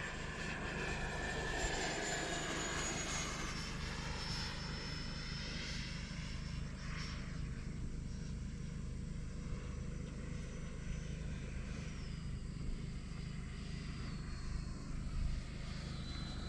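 Electric ducted-fan whine of an FMS F/A-18 Super Hornet RC model jet in flight: a high-pitched whine that drops in pitch in several steps as the jet moves and the throttle changes, over a steady low rumble.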